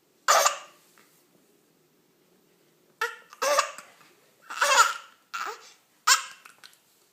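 A baby with the hiccups: one sharp hiccup, then after a pause a run of five short bursts of hiccuping mixed with baby laughter.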